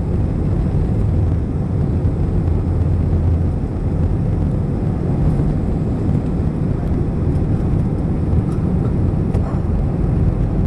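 Steady, loud low rumble of an Airbus A321-211 heard from inside the passenger cabin: CFM56 turbofan engines and airflow noise.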